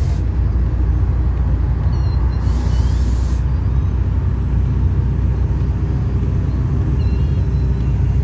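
Engine of a Volare V9L microbus on an Agrale chassis running steadily under way, a deep, even drone heard from inside the bus.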